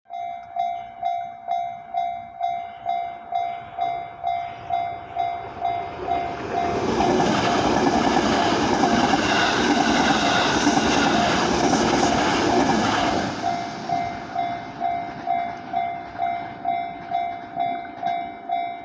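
Japanese railway level-crossing alarm ringing its repeated bell tone about twice a second, while a train passes over the crossing in the middle, its rumble and wheel clatter loud enough to drown the bell for several seconds. The bell keeps ringing after the train has gone by.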